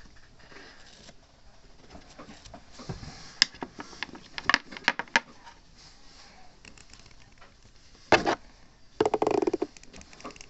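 Fingers tapping and rubbing right at a phone's microphone, ASMR-style: scattered sharp taps, a louder brushing burst just past eight seconds, and a fast rattle of taps around nine seconds.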